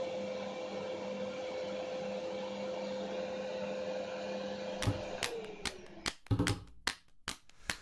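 Kent Cyclonic (KC-T3520) vacuum cleaner motor running steadily with a constant whine, then switched off about five seconds in, its pitch dropping as it winds down. A series of sharp clicks and knocks follows over the last few seconds.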